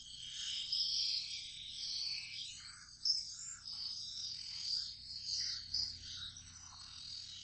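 400-grit sharpening stone scraping over steel in repeated strokes, an irregular, hissing rasp that swells and fades with each pass.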